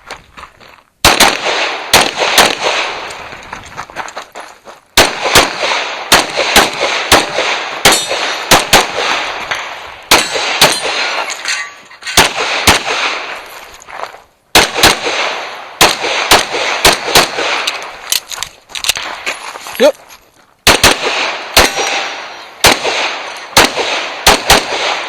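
Rapid pistol fire in a practical shooting stage: strings of quick shots, often in pairs, broken by short pauses, each shot trailing off in a ringing echo.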